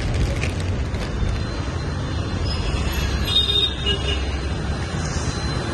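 Steady rumble of road traffic, with a short high-pitched tone about three seconds in.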